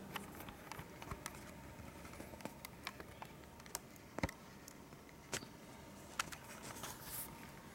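Faint, irregular light clicks and taps of handling, with a sharper click about four seconds in and a short rustle near the end.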